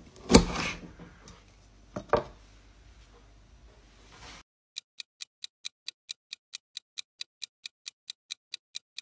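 A quiz countdown timer ticking like a clock, a fast even ticking that starts about five seconds in. Before it, room sound from a short video clip with two sharp knocks, the first the loudest.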